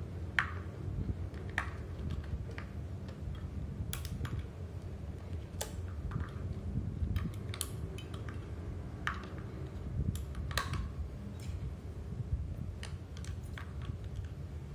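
Irregular small plastic clicks and taps as the batteries and battery compartment of a TV remote in a silicone cover are handled, with a low steady rumble underneath.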